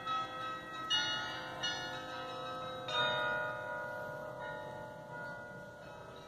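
Stevenskerk's church tower bells ringing: several strikes in the first three seconds, each with long, overlapping ringing tones that slowly die away.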